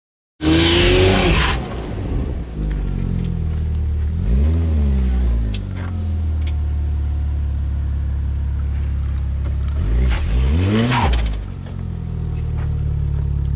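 2004 Audi Allroad's 2.7-litre twin-turbo V6 running as the car crawls over rock ledges, revving up and back down twice, about four and a half and eleven seconds in. It opens with a loud rush of noise lasting about a second.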